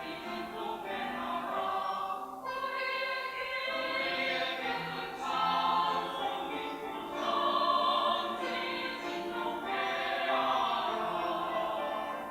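Church choir singing an anthem in parts, holding sustained chords, the voices swelling louder around the middle.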